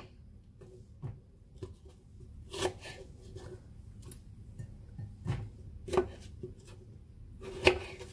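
Kitchen knife slicing okra pods on a cutting mat: sharp, irregular knocks of the blade against the mat, the strongest near the end.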